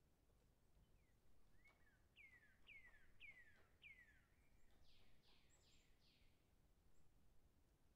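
Faint bird call: four clear whistled notes, each falling in pitch, about half a second apart, then a few harsher, scratchier notes.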